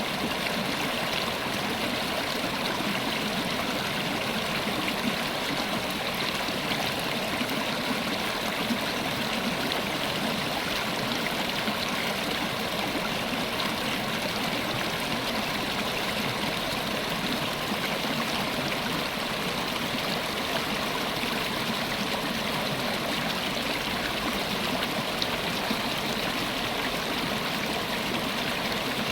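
River water running over rocks in a steady, unbroken rush with fine gurgling.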